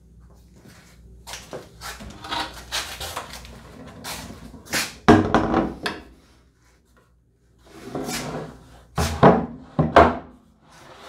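A plywood crosscut sled being handled and set onto a table saw: wood scraping and sliding, a sharp knock about five seconds in, then more sliding and two knocks near the end as the sled is seated on the saw table.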